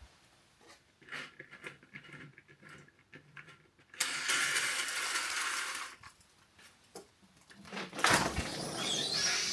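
Light taps and rustles, then two long sliding rushes about four seconds apart, the second rising in pitch as it goes: a curtain being drawn along its rail and the balcony door being opened.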